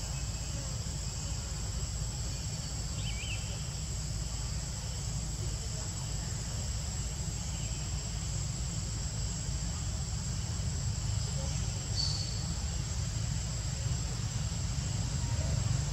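Insects droning steadily at a high pitch over a low rumble. There are a few short chirps about three seconds in and a brief click near the end.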